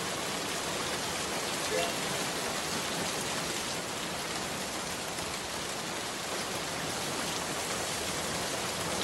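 A steady, even hiss of noise, like rain, with a faint short pitched sound about two seconds in.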